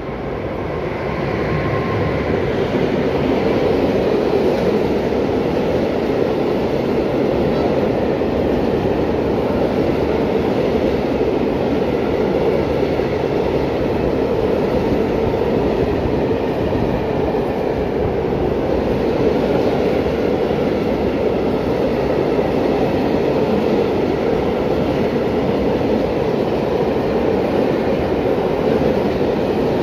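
Freight train of open coal wagons rolling past on the rails with a steady, loud rumble of wheels on track. The noise builds over the first couple of seconds, then holds evenly.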